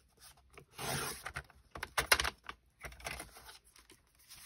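A sliding paper trimmer's cutting head pushed along its rail, slicing through card stock. It makes a few short scraping rasps and a cluster of sharp clicks about two seconds in.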